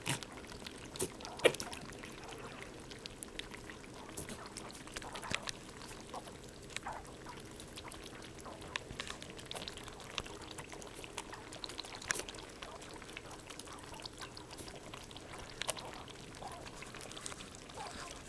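Rabbits lapping water from a bowl: a run of small, irregular wet clicks, with one sharper click about a second and a half in.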